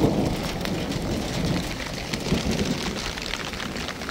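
Steady rain falling, with many individual drops ticking sharply over a low continuous rumble.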